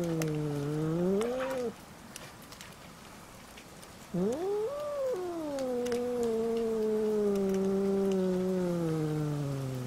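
Cat caterwauling: drawn-out threat yowls in a standoff between two stray cats. One yowl falls and ends with a rising upturn within the first two seconds; after a pause, another jumps up sharply and then slowly sinks in pitch, held for several seconds.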